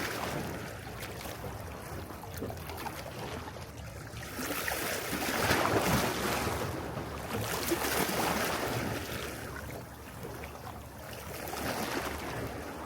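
Mediterranean sea waves washing onto the shore: a hiss of surf that swells and ebbs, with the biggest surge about the middle and a smaller one near the end.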